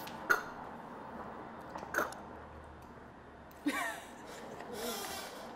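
Short, quiet vocal reactions and breaths after swallowing a shot of hot sauce and vinegar: a brief cry about two seconds in, a falling groan just before four seconds, and a breathy exhale near the end.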